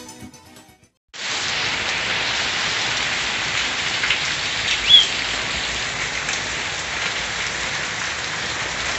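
Heavy rain falling steadily, setting in about a second in after a brief silence. A single short high chirp sounds near the middle.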